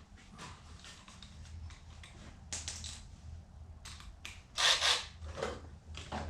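Tools and metal parts being handled in a workshop: scattered clicks, clinks and short scrapes, with a louder rustling scrape about four and a half seconds in, over a steady low hum.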